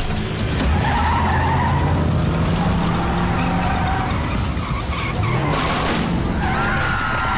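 Car engine running and revving, with tyres squealing near the end as the car speeds off.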